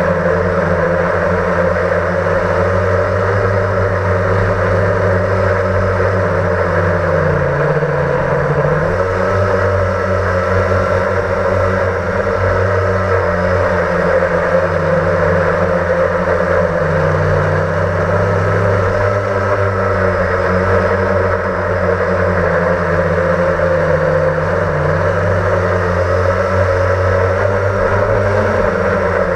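Blade 350 QX quadcopter's four electric motors and propellers whirring, heard up close from on board, with the pitch sliding up and down several times as the throttle changes in flight.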